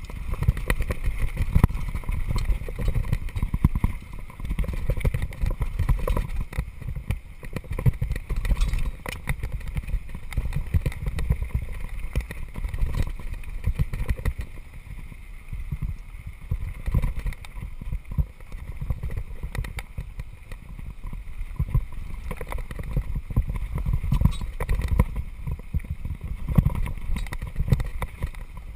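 Downhill mountain bike with a dual-crown fork rolling fast over a loose gravel track: a constant rumble and clatter of tyres on stones, the bike rattling over the bumps.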